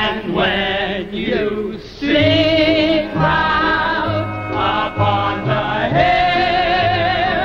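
Male vocal quartet singing in close harmony, several voices holding sustained notes with vibrato. From about two seconds in, low bass notes step along underneath.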